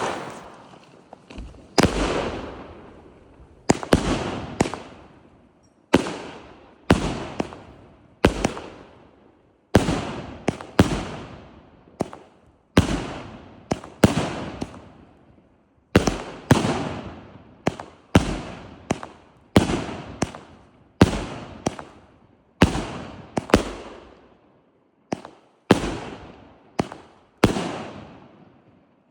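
A long string of loud, sharp bangs, about one a second and sometimes two in quick succession, each trailing off over about a second.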